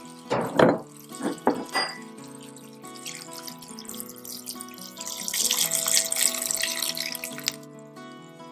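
Water poured into a stainless steel pan of sprouted lentils and potatoes, a steady hissing pour lasting about two and a half seconds in the second half. A few loud short knocks come in the first two seconds.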